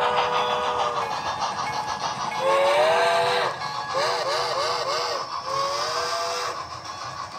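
Chime steam whistle from an HO-scale model steam locomotive's sound system: a held blast ending about a second in, then a long blast, four quick short toots, and another long blast near the end, over steady running noise of the train.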